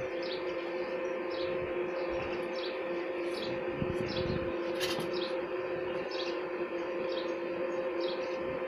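A bird chirping over and over, about two short calls a second, over a steady low two-note hum, with a single sharp click about five seconds in.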